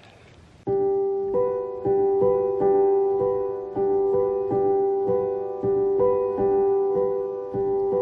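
Background piano music: a steady pattern of repeated notes that starts suddenly under a second in.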